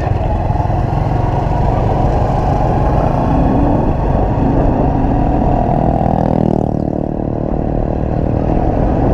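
Honda Wave 110i's single-cylinder engine running under throttle on the move, with the loud raw intake noise of an open, filterless air intake. About two-thirds through, the throttle is eased off and the pitch falls.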